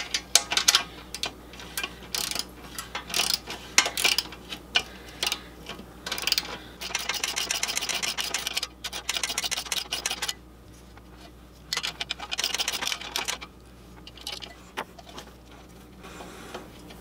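A metal hand tool clicking and scraping against a nut on a scroll saw as the nut is worked loose: bursts of rapid metallic ticking, the longest and densest about seven seconds in, with quieter rubbing between.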